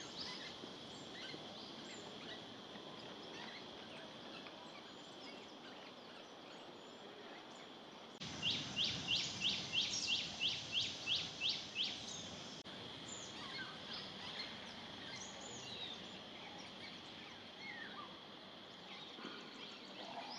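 Forest ambience with scattered faint bird chirps over a steady high-pitched hiss. From about eight seconds in, a bird repeats a quick descending call about three times a second for some four seconds, louder than the rest.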